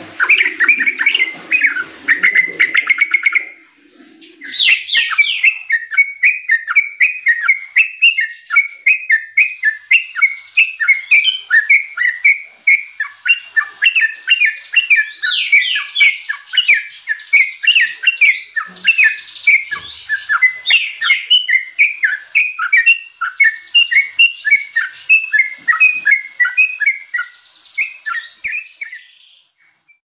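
Yellow-vented bulbul (trucuk) singing a fast, unbroken chatter of short whistled notes, pausing briefly about four seconds in.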